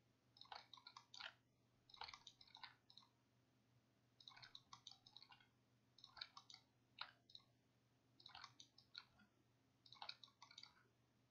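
Faint clicking of a computer mouse and keyboard, in short clusters of a few clicks every one to two seconds.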